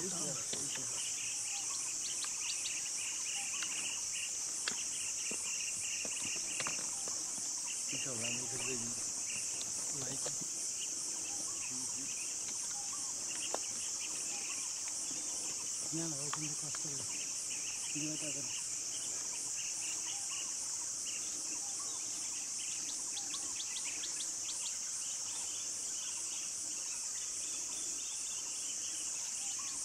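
A dense insect chorus in forest: a steady, high-pitched shrill drone that runs on without a break. Faint low voices murmur now and then beneath it.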